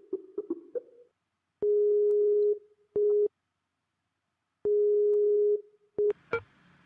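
Skype outgoing-call ringing tone: a steady mid-pitched tone sounding in a long-short pair, twice, about three seconds apart. A quick run of short tones comes just before, as the call connects, and a few clicks near the end as the call is picked up.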